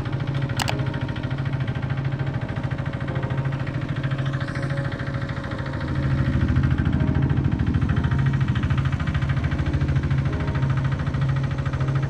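Hand tractor engine running steadily as it drives, with a fast, even chug from its firing strokes; it gets louder about six seconds in.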